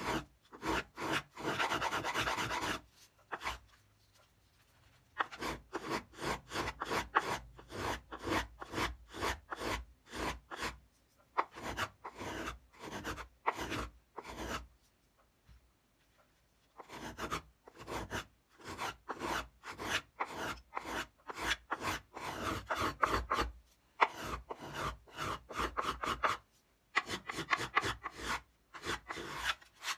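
Small violinmaker's finger plane shaving the spruce top of an old violin in quick, short strokes, in runs broken by a few brief pauses. Each stroke is a short rasp of the blade cutting wood as the top's over-coarse arching is planed down and refined.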